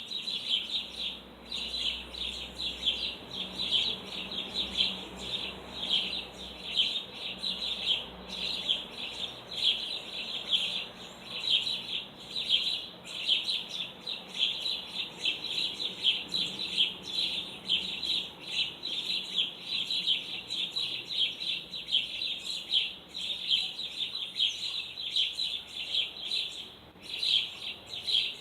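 Many small birds chirping rapidly and continuously, their high calls overlapping into a dense chatter.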